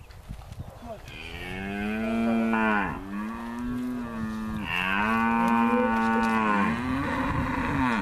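Calf mooing: three long bawls in quick succession, each held at a steady pitch and dropping away at the end.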